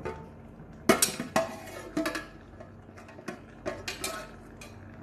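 Metal clanking of a steel spoon and a metal pot lid as the lid is lifted off a large cooking pot. Several sharp clanks with a brief ring, the loudest about a second in.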